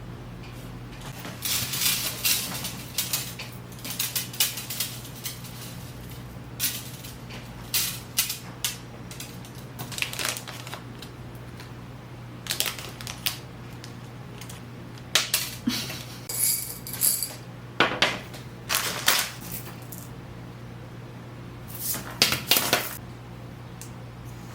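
Small hard beads clicking and rattling against one another and their container in short, irregular bursts, as they are handled for stringing a waist bead strand. A steady low hum runs underneath.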